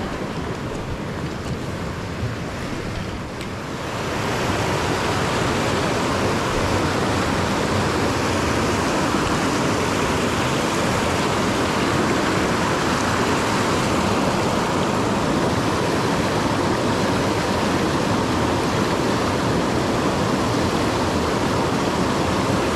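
Steady rush of a flowing mountain creek, growing louder about four seconds in.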